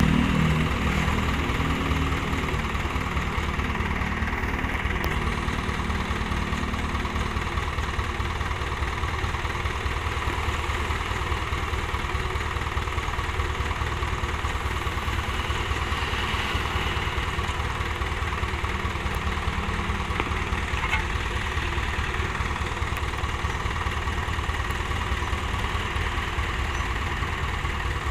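Mitsubishi dump truck's diesel engine idling steadily, with a low, even hum throughout.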